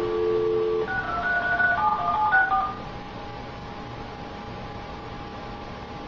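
Telephone dial tone that cuts off just under a second in, followed by a quick run of touch-tone (DTMF) keypad beeps as a number is dialled, then only a faint steady hum.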